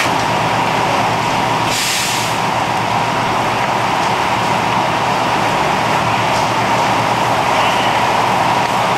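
Fire apparatus engine running steadily, with a steady whine over it and a short burst of hiss about two seconds in.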